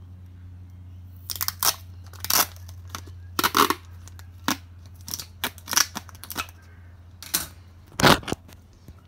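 Close-up handling noise: a string of irregular rubs, knocks and scrapes from a hand working right over the phone's microphone, over a steady low hum.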